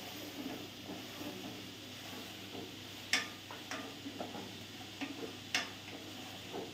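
Wooden spatula stirring and scraping minced meat as it fries in a steel pot, over a steady faint sizzle. The spatula clacks sharply against the pot twice, about halfway and near the end.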